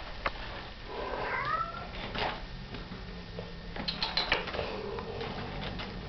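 Kitten meowing once, a short call that rises and falls in pitch, with scattered light clicks and scratches around it.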